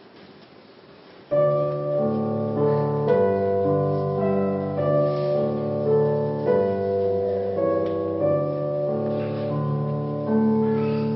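Keyboard accompaniment starting about a second in, playing slow sustained chords.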